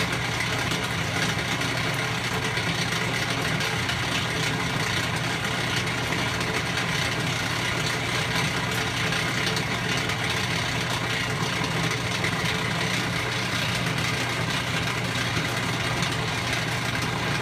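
Whirlpool LHW0050PQ washer running with a steady, harsh mechanical crunching and grinding over a low hum: a fault noise that came on suddenly and has left the washer not working properly.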